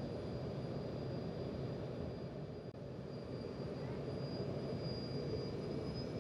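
Steady low rumble with a thin high-pitched whine that edges up slightly near the end: a Lockheed L-1011 TriStar's auxiliary power unit and the pushback tug's engine running while the airliner is under tow, its main engines not yet started.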